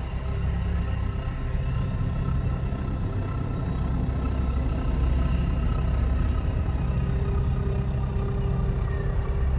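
Sci-fi UFO hovering sound effect: a steady low hum with faint high tones held above it.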